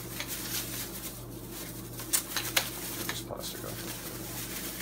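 Clear plastic bag crinkling and rustling as hands unwrap a handheld radio transmitter, with two sharp crackles about two seconds in. A steady low hum sits underneath.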